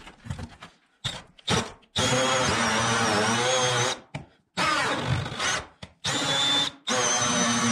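Cordless drill turning a large hole saw through a wooden subfloor. It starts in short bursts, then runs in longer stretches with brief stops. The motor's pitch sags and recovers as the saw bites.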